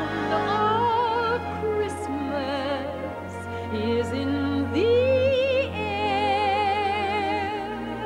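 A woman singing long, held notes with a strong vibrato over an orchestra's sustained low chords.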